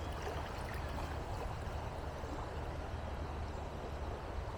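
Steady rushing of a shallow creek's flowing water.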